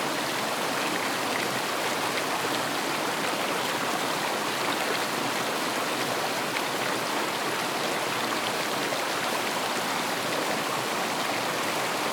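River water running: a steady, even rush of flowing water.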